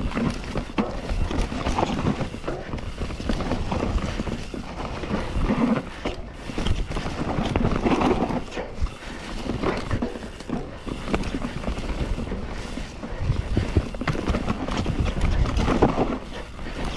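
Mountain bike ridden over a rough dirt trail: an irregular, continuous clatter of knocks and rattles from the bike as it rolls over roots and bumps, over a low rumble of tyres on the ground.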